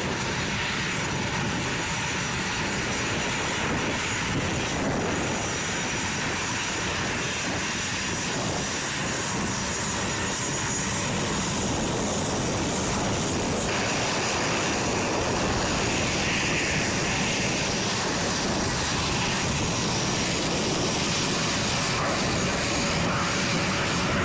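Jet aircraft engines running on the flight line: a steady roar with a faint high whine.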